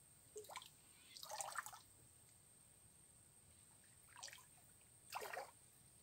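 Four short, faint splashes of water: two in the first two seconds, two more a little past the middle.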